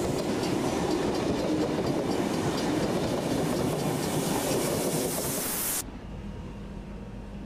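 Double-deck electric suburban train passing close by, its wheels running over the track with a steady loud noise. It cuts off suddenly about six seconds in, leaving a much quieter steady low hum.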